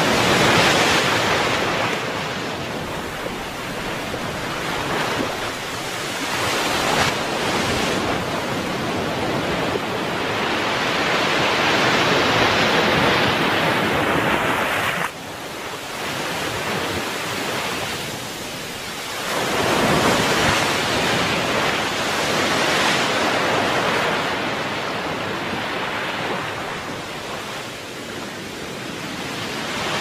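Small ocean waves breaking and washing up a sandy beach. The surf swells and ebbs every several seconds, with a sudden drop in level about halfway through.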